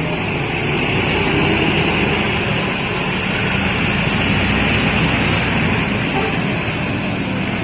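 Large bus's diesel engine running with a steady low rumble.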